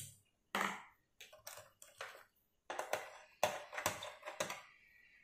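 Handling noise of hands working wires on a plastic switch board: a run of faint, separate clicks and rustles.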